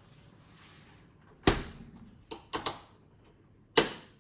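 Freezer door lock being worked and the freezer door knocking against it: a few sharp clacks, the loudest about a second and a half in, a quick cluster a moment later and one more near the end.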